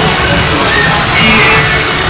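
Loud music playing over a fairground bumper-car track's sound system.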